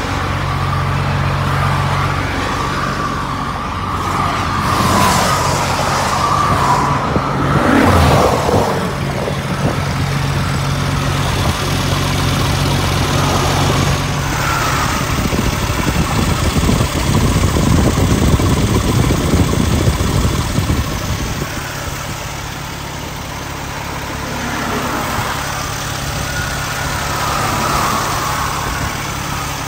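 Cummins ISX15 diesel engine of a Kenworth W900 running, a steady low drone that changes character about halfway through, giving way to a broader rushing noise.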